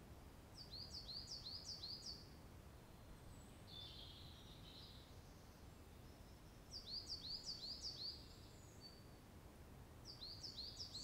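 A small songbird singing a quick phrase of high, repeated down-slurred notes, three times with pauses between, with a fainter call in between.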